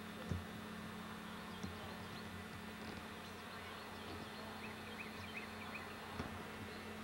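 Steady low buzz, with a few soft bumps and a short run of faint high chirps about five seconds in.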